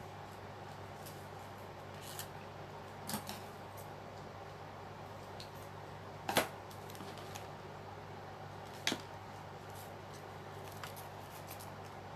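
A few short sounds of paper being torn and handled for a collage, the loudest about six seconds in, over a steady low hum.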